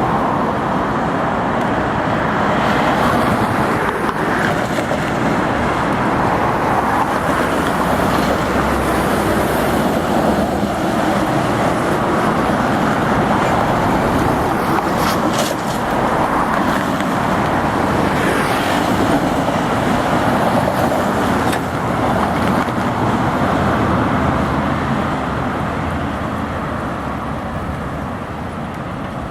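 Heavy road traffic, cars and trucks passing steadily one after another on a busy multi-lane road; the noise eases off a little near the end.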